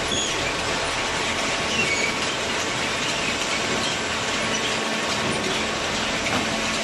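Horizontal hydraulic cardboard baler running: a steady mechanical din with faint short squeaks and clatter.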